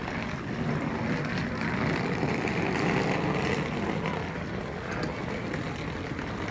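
Wheeled suitcases rolling over a paved path: a steady rolling noise, slightly louder in the middle.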